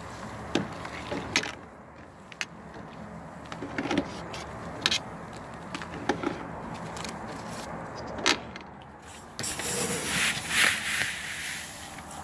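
A metal spoon stirring crushed malt into mash water in a stainless steel brewing pot, with scattered clinks and knocks of the spoon against the pot. Near the end, a louder rushing rustle of dry crushed grain in a metal scoop, ready to be added to the mash.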